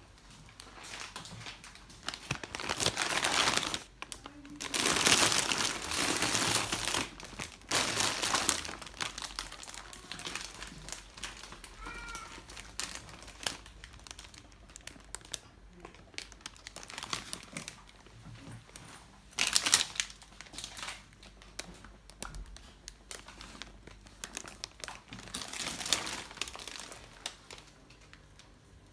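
Plastic grocery bags and food packaging rustling and crinkling as groceries are handled, in several separate spells with quieter gaps between.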